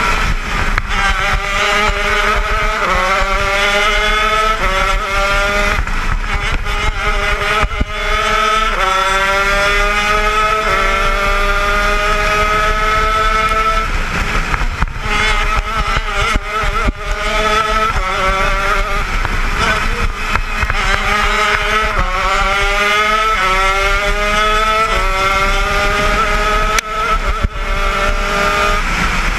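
80cc two-stroke shifter kart engine at full racing effort, heard from on board: its pitch climbs again and again, each climb cut off by a sudden drop as it shifts gear, with one long climb down the straight about a third of the way in.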